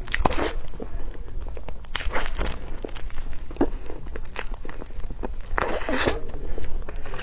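Eating sounds: irregular crunches and clicks of someone biting and chewing food.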